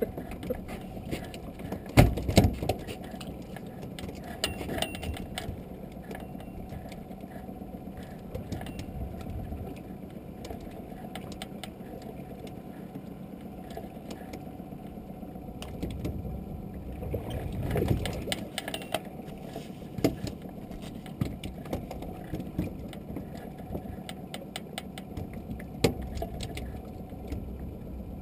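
Scattered clicks and knocks of fishing tackle being handled aboard a small open boat, over steady low background noise, with a louder knock about two seconds in.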